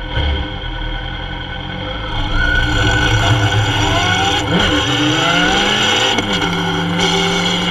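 Kawasaki Z750 inline-four motorcycle engine idling, then pulling away and accelerating. The revs rise from about two seconds in, with shifts up through the gears around the middle and again near six seconds, then it settles into a steady cruise.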